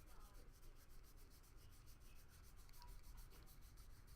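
Very faint rubbing of trading cards sliding against one another as a stack of base cards is flipped through by hand.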